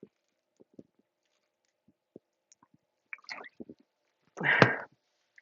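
A few soft low taps, then about four and a half seconds in a single short, loud burp from a stomach swollen with carbonated soda.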